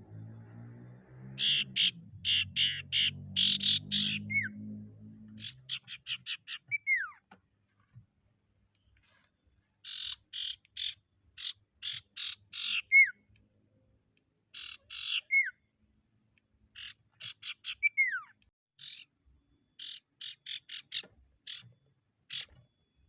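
Sirtu, the common iora, singing in repeated phrases of quick chattering notes, several of them ending in a short falling whistle, with gaps of silence between phrases. A low drone sits under the first five seconds.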